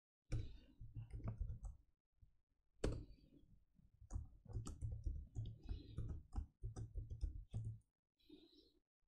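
Typing on a computer keyboard: a run of irregular keystroke clicks, with a brief pause about two seconds in.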